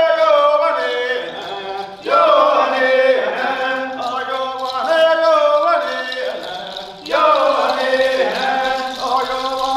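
Haudenosaunee stomp dance song: a leader's chanted calls answered by the line of dancers, in short sung phrases about every two to three seconds.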